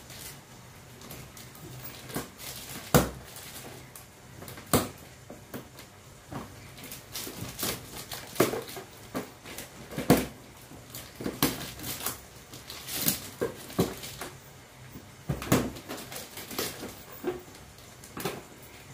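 Plastic fish bag crinkling and rustling as fingers work at the tight rubber band around its neck, with irregular sharp crackles, the loudest about 3 and 10 seconds in.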